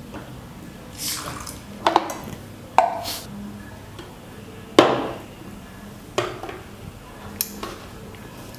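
Stainless steel mixer grinder jar clinking and knocking as it is handled and seated on the grinder base, with about six separate metallic knocks, the loudest about five seconds in. The motor is not yet running.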